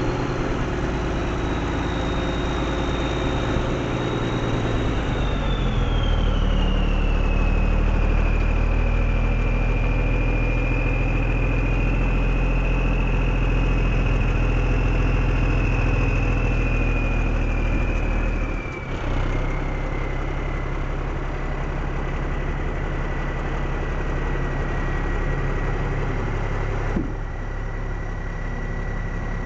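1989 International F5070 dump truck's engine running at idle, with a steady high whine over it that glides down in pitch about five seconds in and again near the twenty-second mark.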